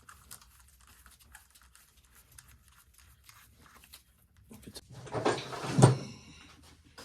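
Handling of metal engine parts: a few light clicks, then a rattle and scrape lasting about two seconds that ends in a sharp clank with a brief metallic ring.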